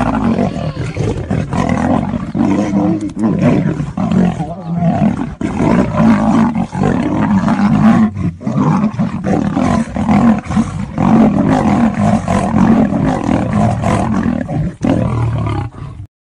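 A lion and a tiger fighting: continuous, loud big-cat roaring that cuts off suddenly near the end.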